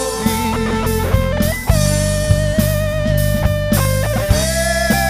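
Rock band playing an instrumental passage with no vocals: electric guitar holding long, slightly wavering lead notes over bass guitar and a steady drum beat.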